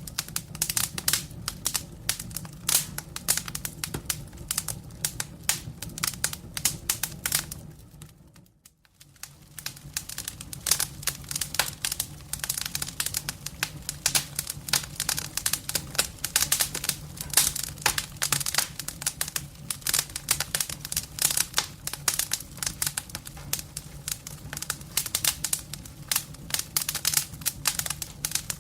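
Campfire crackling: a dense, irregular run of pops and snaps over a low steady rumble of burning wood. About eight seconds in it fades almost to nothing for about a second, then comes back.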